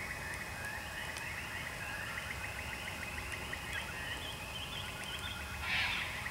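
Night-time chorus of small animal calls outdoors: a rapid pulsed trill repeating steadily, with a short louder rustling burst near the end.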